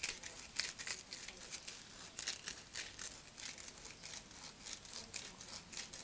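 A small scrap of sandpaper rubbed by hand over the outside of a short piece of copper tubing, making quiet, irregular scratching and rustling. The copper is being cleaned bright for soldering.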